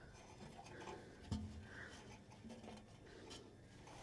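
Faint scraping and handling noises, with a soft knock about a second and a half in.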